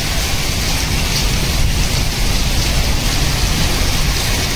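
Heavy rain pouring onto a concrete rooftop: a steady, even hiss with a low rumble underneath.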